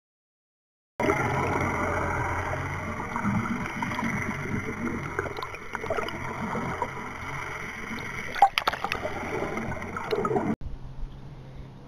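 Water gurgling and rushing over an underwater camera, with a steady low hum beneath and a couple of sharp knocks near the middle. It starts suddenly about a second in and cuts off near the end.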